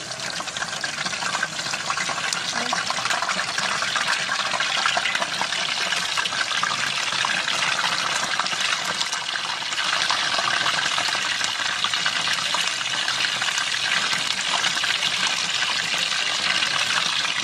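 Chicken pieces deep-frying in hot oil in a small pan: a steady crackling sizzle that grows a little louder about ten seconds in.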